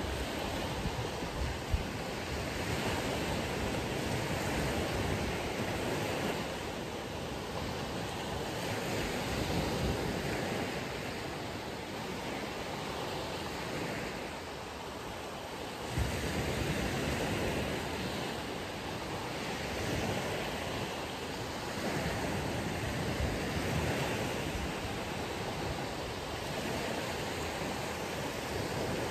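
Ocean surf on a beach: waves breaking and washing in, the rush swelling and easing every few seconds, with a couple of brief sharper bumps.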